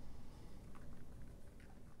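Faint, sparse soft taps and rubbing, hand-handling sounds at a kitchen counter, over low room noise.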